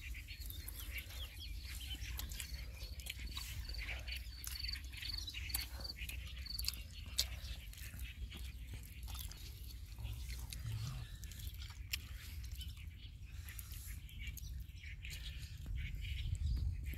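Outdoor ambience: a bird chirping repeatedly, a few high notes in quick succession a few seconds in, over a low steady rumble. Faint scattered clicks and smacks come from eating with the hands.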